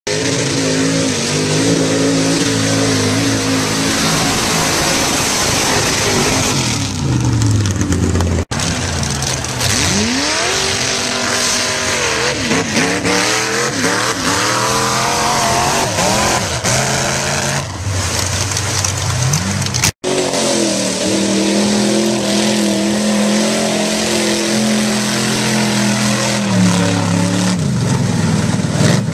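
Modified mud-bog trucks' engines revving loud as they drive through a mud pit, the pitch sweeping up and down with the throttle. The sound cuts off abruptly twice, about 8 and 20 seconds in, as one truck's run gives way to the next.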